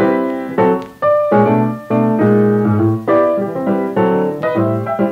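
Background music: a piano playing chords, each struck and left to fade.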